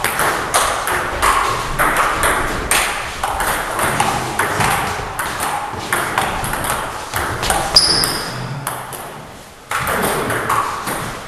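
Table tennis ball struck back and forth between rackets and bouncing on the table in a rally: a quick string of sharp clicks. There is one louder click about eight seconds in, then a short lull before the clicking starts again.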